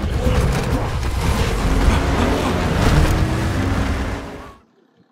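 Loud, dense film-soundtrack mix of car engines with music underneath, cutting off abruptly about four and a half seconds in.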